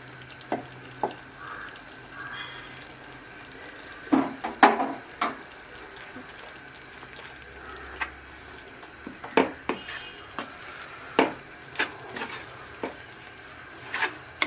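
Wooden ladle stirring thick, simmering chilli pickle in a pan, knocking against the pan now and then over a faint steady sizzle.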